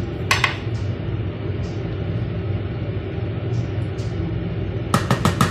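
Steady low hum of kitchen machinery, such as refrigeration or an extractor fan. A couple of sharp clicks about half a second in and a quick run of four or five knocks near the end come from a plastic tub being handled.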